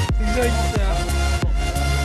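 Background music with a heavy bass and a steady electronic beat.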